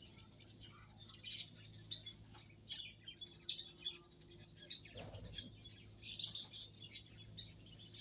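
Small aviary birds chirping: many short, high chirps in quick succession, over a steady low hum, with a single low thump about five seconds in.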